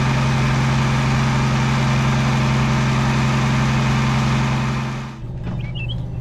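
Engine running steadily at constant speed, stopping abruptly about five seconds in. A few short bird chirps follow in the quieter background.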